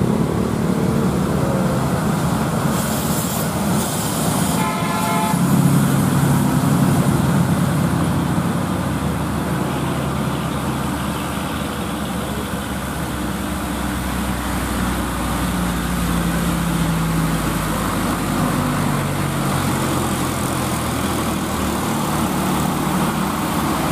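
Heavy diesel truck engines pulling hard under load up a steep climb, a steady drone that shifts in pitch as they work the hill. A brief horn sounds about five seconds in.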